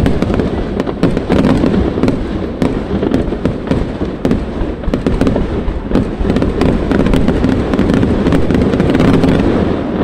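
Aerial fireworks bursting in quick succession, a continuous loud din with many sharp crackles on top.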